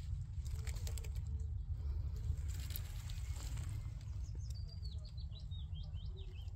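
A steady low rumble runs under scattered crackles, like dry leaf litter and twigs being stepped on, in the first half. From about four seconds in, a small songbird sings a quick, high warbling phrase.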